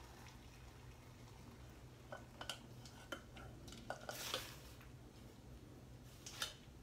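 Metal spoon clinking and scraping against a stainless steel saucepan while hot broth is strained into a blender jar: a few light, scattered clinks, with a short splash of pouring liquid about four seconds in.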